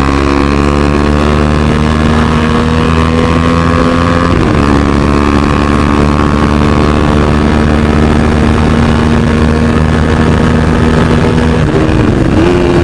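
KTM RC 390's single-cylinder engine running loud through an aftermarket exhaust while the bike is ridden. The engine pitch climbs slowly, with a brief break and shift in pitch about four and a half seconds in and again near the end, as with gear changes.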